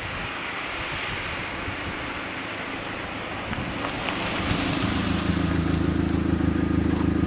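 2000 Mazda Miata's 1.8-litre four-cylinder engine, breathing through an Enthuza XR axle-back with a Magnaflow straight-through muffler and a straight pipe in place of the resonator, approaching at low speed, then settling into a steady, deep idle close by from about four and a half seconds in.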